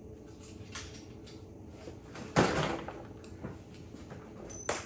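Handling knocks as a screwdriver's magnetic tip is tried on small metal parts: a couple of light clicks and one louder clack about two and a half seconds in.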